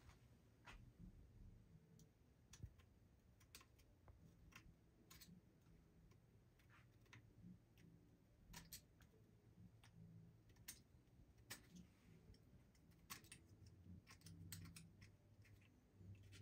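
Near silence broken by faint, irregular small clicks and taps as the revolver and cleaning tools are handled while scrubbing off carbon fouling.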